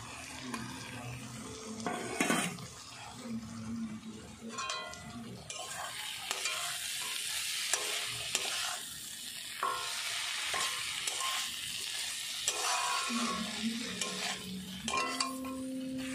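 Metal spatula stirring and scraping fried soya chunks through masala in a kadai, with scrapes and clicks against the pan and oil sizzling. The sizzle grows thicker and louder about five or six seconds in as the chunks are worked into the hot masala, the kosha stage of frying the masala with the soya chunks.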